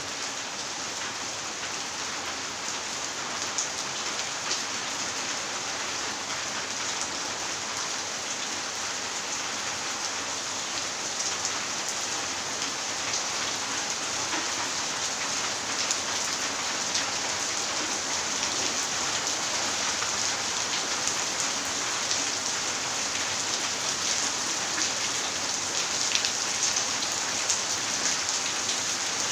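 Steady rain falling on paved ground, a dense hiss of drops that grows gradually a little louder.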